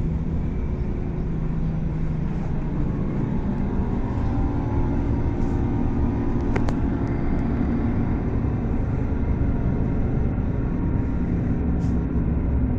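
Regional train running, heard from inside the carriage: a steady rumble of the ride with faint steady tones above it, and one sharp click about six and a half seconds in.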